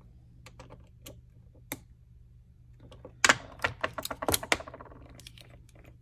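Light metal clicks and taps from handling a Leatherman Free P4 multitool and a precision screwdriver while its pivot screw is tensioned, with a flurry of louder, rapid clicks a little past halfway.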